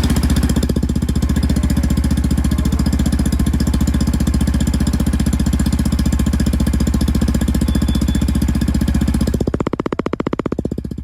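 Motorcycle engine idling steadily through its exhaust, a low, slightly raspy note with an even pulse. About nine and a half seconds in, it drops away to a quieter, different sound.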